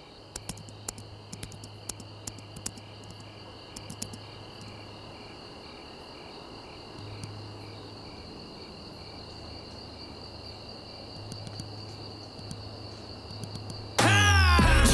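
Crickets chirring steadily, over a low hum, with a run of light keyboard clicks in the first four seconds as a password is typed. Loud music cuts in suddenly about a second before the end.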